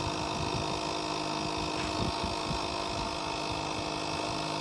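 Portable tire pump running with a steady hum.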